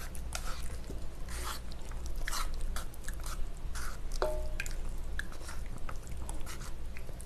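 Wet, sticky squishing of cold buckwheat noodles thickly coated in spicy gochujang sauce, worked with wooden chopsticks in a steel bowl and chewed, with scattered small clicks and a brief squeak about four seconds in.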